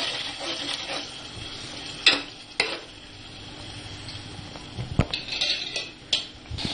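Masala paste sizzling as it fries in oil in a pan, stirred with a utensil that knocks against the pan a few times.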